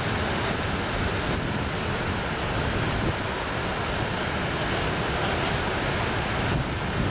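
Floodwater released through the Pensacola Dam's open floodgates, churning as whitewater in the Neosho River: a steady rushing roar of turbulent water.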